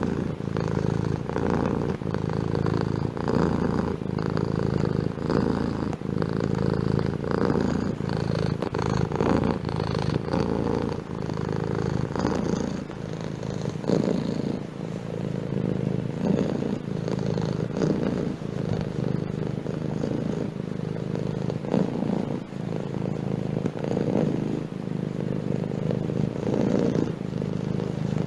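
Domestic cat purring steadily and close up, the purr swelling and fading in a regular rhythm of about one pulse a second.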